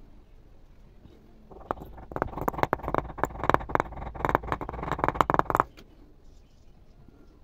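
A wooden handle tapping rapidly on an upturned glass bowl, knocking it down into packed casting sand: a quick run of sharp taps, several a second, starting about two seconds in and stopping after about four seconds.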